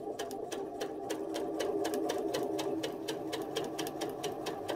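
Janome electric sewing machine stitching a seam at a steady speed: its motor hums under an even rapid clicking of the needle, several stitches a second.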